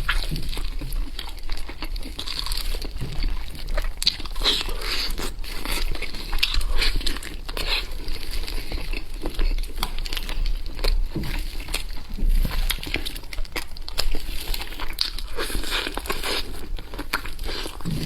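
Close-miked eating sounds: a continual, irregular run of wet clicks, crackles and crinkles from chewing and handling spicy meat.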